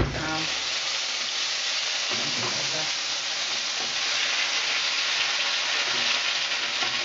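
Thai green curry paste sizzling steadily in hot oil in a stainless steel frying pan while it is stirred with a spatula, the paste being fried on a high gas flame to get its flavours going.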